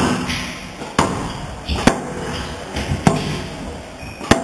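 Squash rally: the ball is struck by rackets and smacks off the court walls, five sharp cracks spaced about a second apart.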